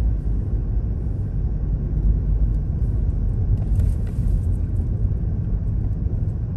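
Steady low rumble of a car driving, road and engine noise from inside the moving car.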